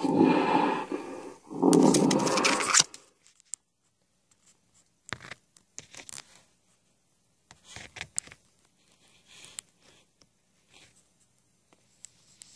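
Recorded King Kong roars played back from the display's mp3 sound, two loud rough bursts that cut off suddenly about three seconds in. Then only faint scattered clicks and scrapes.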